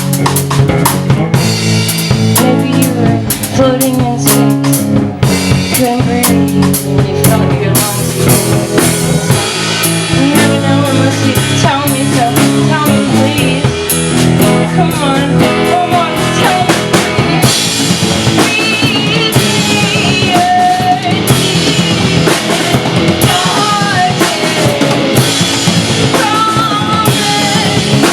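Guitar and drum kit playing an instrumental passage of a rock song, with dense drum hits over the first several seconds and guitar lines that bend in pitch later on.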